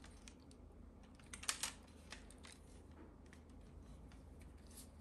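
Faint clicks and light taps of a Daiwa Power Mesh fishing rod's sections knocking together as they are handled, with a short cluster of louder taps about a second and a half in.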